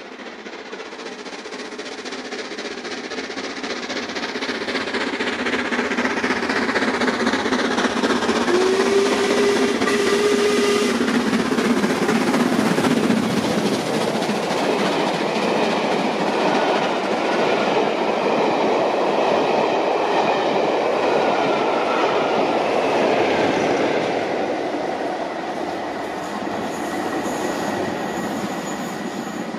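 A steam-hauled passenger train, LMS Black 5 locomotive 44871 at its head, passing at speed. It grows louder for about eight seconds as it approaches, stays loud for some fifteen seconds as the coaches run past with their wheels going over the rail joints, then fades away over the last few seconds.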